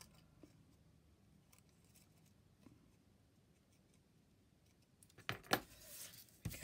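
Small craft scissors snipping faintly at a strip of patterned card, trimming its corner round. Near the end come louder paper rustles and a sharp knock as the paper is handled.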